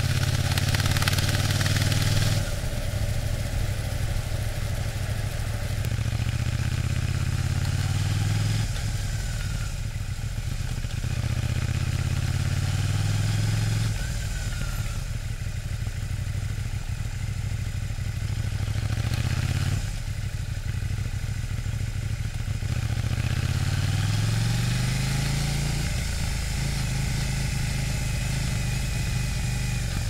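KTM 790 Duke's parallel-twin engine running through its stock exhaust while being ridden, the engine note rising under throttle and dropping back several times as gears are changed. A loud hiss of wind or road noise rides over it in the first two seconds.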